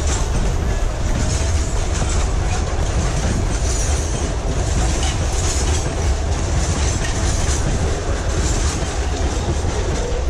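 Train rolling past, with a steady heavy rumble and the clatter of wagon wheels over the rails.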